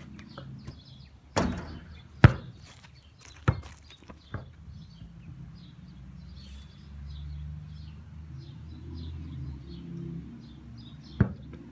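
A basketball thudding several times at uneven intervals, the loudest about two seconds in and another near the end, as it is bounced and shot at a backyard hoop. Birds chirp in the background.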